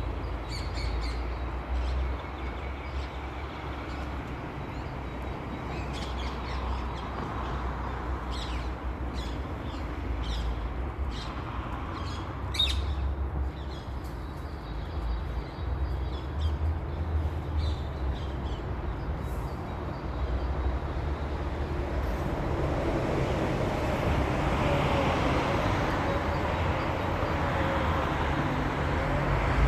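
Rose-ringed parakeet giving a run of short, sharp calls between about 8 and 13 seconds in, over a steady low rumble. Near the end a louder engine-like hum builds up.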